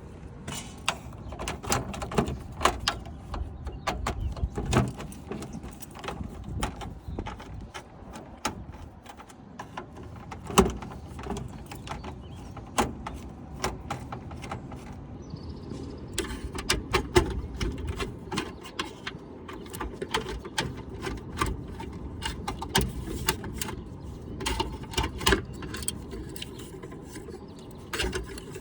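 Irregular clicks, knocks and clanks of hand work on an air-conditioner condenser unit during a capacitor replacement, over a steady low rumble.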